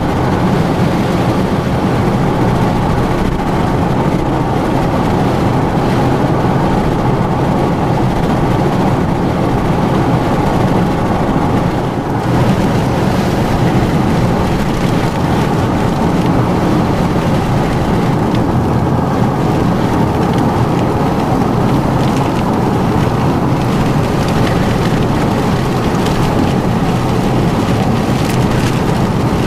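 Steady road and engine noise of a car driving, heard from inside the cabin, with a brief dip in level about twelve seconds in.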